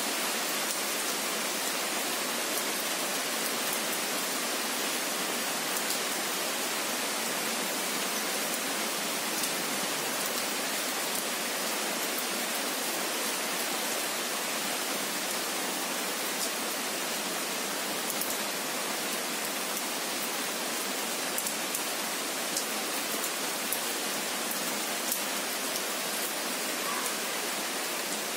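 Steady rain falling on trees: an even hiss with faint scattered drop ticks.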